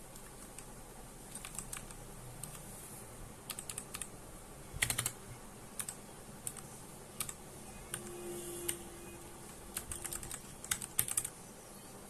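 Keys of a Royal Kludge RK61 60% mechanical keyboard being typed on: irregular clicky keystrokes in short bursts, the loudest cluster about five seconds in.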